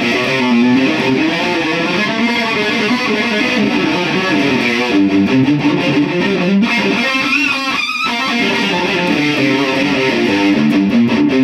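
Black Yamaha electric guitar played through an effects pedal fitted with a newly swapped op amp, heard in the room from an unmiked guitar cab. The tone is distorted and high-gain, which the player puts down to the new op amp's higher open-loop gain. A wavering, bent note sounds about seven seconds in.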